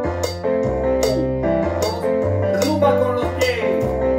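Cuban salsa rhythm track of piano, bass and campana (cowbell) playing in a steady groove, with sharp percussive hits repeating about twice a second.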